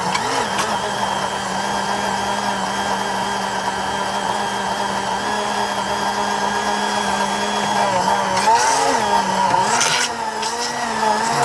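Hamilton Beach DrinkMaster drink mixer's motor running on low speed, its spindle with a plastic blade mixing a milkshake in a metal can, with a steady hum. About eight seconds in the hum wavers, a short clatter comes about ten seconds in, and after it the pitch wobbles slightly higher.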